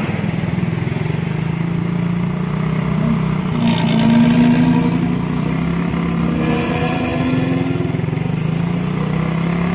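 Intercity bus diesel engine running through its snoring ('ngorok') exhaust, a deep steady drone that rises in pitch about three and a half seconds in. Two short hisses come through over it, about three and a half and six and a half seconds in.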